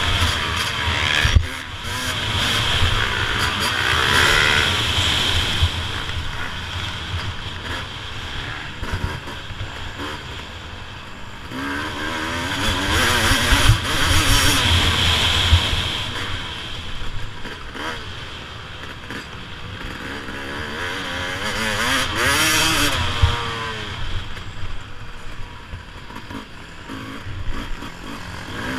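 Suzuki RM250 two-stroke motocross engine heard from on the bike, repeatedly revving up hard and backing off as it is ridden around a dirt track, with a constant low wind rumble on the camera.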